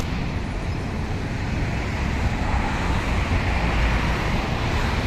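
Steady outdoor background noise: a low, flickering rumble with a hiss above it, swelling slightly midway.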